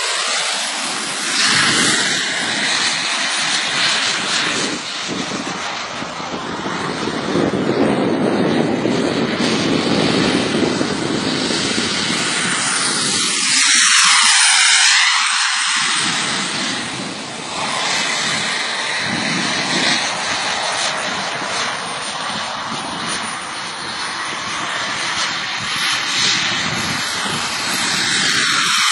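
Jet aircraft flying low passes, its engine noise rising and falling. It passes close about halfway through and again near the end, each time with a sweeping whoosh.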